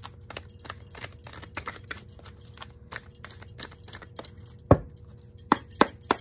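A deck of tarot cards shuffled by hand: a steady patter of soft card clicks, then a few sharp card slaps in the last second and a half, the first of them the loudest.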